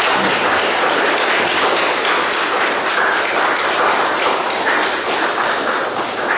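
Audience applauding: dense, many-handed clapping that begins to die down near the end.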